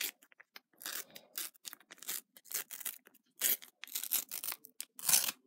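Sticker packet wrapper crinkling and tearing as it is pulled open by hand, a string of short irregular rustles with a few louder rips, the loudest near the end.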